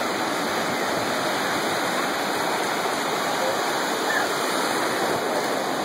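Ocean surf breaking and washing over the shallows, a steady rushing noise.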